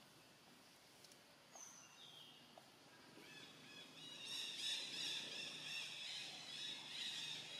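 High-pitched animal chirps: a couple of single short calls, then a dense, rapid stream of chirping from about three seconds in, getting louder.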